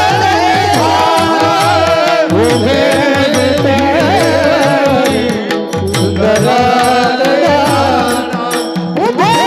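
A man singing a Marathi devotional song in a very high voice, with long gliding held notes over a steady accompanying tone and a hand drum beating about three strokes a second.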